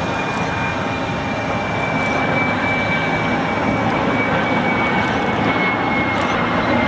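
The CFM56-3 turbofan engines of a Boeing 737-300 on final approach. They give a steady jet roar with a thin high fan whine that slowly falls in pitch, growing a little louder about two seconds in.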